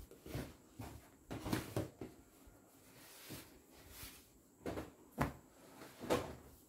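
Folded silk sarees being handled and laid down: a series of short fabric rustles and soft taps, spaced irregularly.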